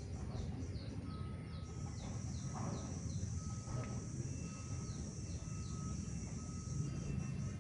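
Outdoor ambience: a steady high insect drone, a run of short falling chirps a few times a second, an on-and-off thin whistle-like tone, and a low rumble underneath.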